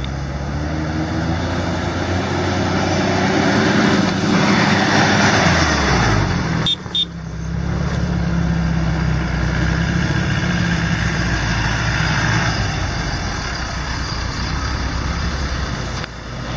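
Four-wheel-drive vehicle engine running on a dirt track, its revs shifting and sliding down about five to six seconds in, with a hiss of noise that swells just before. The sound drops out briefly about seven seconds in.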